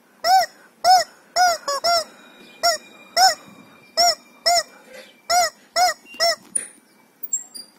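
Rubber screaming chicken toy squeezed by hand again and again: about a dozen short squawks, each rising and falling in pitch, that stop about six seconds in.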